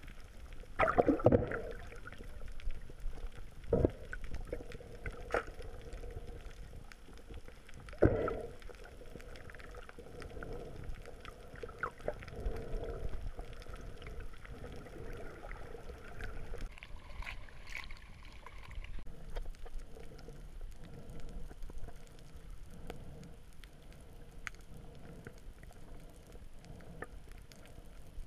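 Muffled water sounds heard underwater through a camera housing: gurgling and sloshing, with a few sharp knocks and thumps, the loudest in the first eight seconds.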